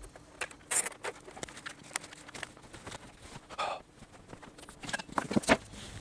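Cables being handled and tucked away inside a PC case during cable management: scattered light clicks and rustling, a short scrape midway, and a quick run of sharper clicks about five seconds in.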